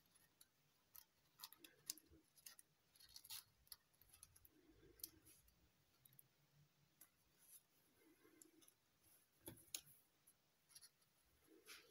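Faint, irregular crinkles and clicks of metallic foil paper being handled as origami units are pressed and slotted together.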